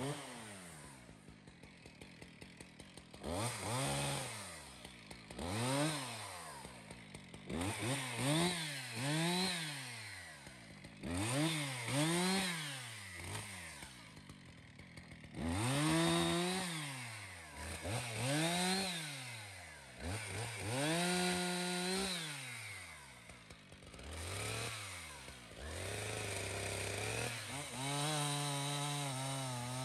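Husqvarna two-stroke chainsaw idling, then revved up and down over and over, a rise and fall every second or two, before running at a steadier, wavering pitch near the end as it cuts through a fallen log.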